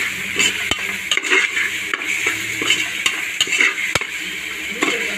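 A slotted metal spoon stirring and scraping chopped onions, tomatoes and green chillies frying in oil in a pressure cooker, over a steady sizzle. The spoon knocks sharply against the pot twice, about a second in and near the end.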